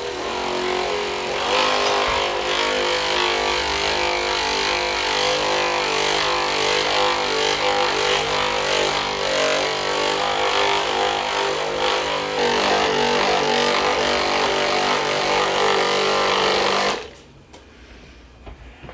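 An electric massage tool's motor runs steadily, its pitch wavering as it works, then switches off suddenly near the end.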